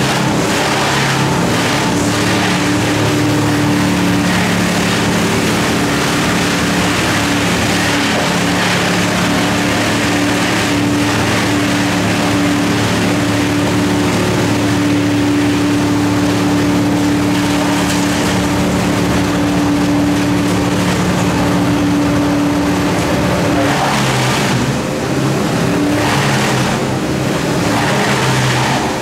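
An engine running loudly and steadily at a constant speed, its note shifting and briefly dipping about 24 seconds in.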